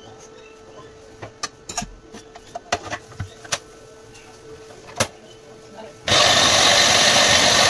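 Hard plastic clicks and knocks as the bowl and lid of an electric food processor are fitted. About six seconds in, its motor switches on and runs loud and steady, chopping onion and green chillies.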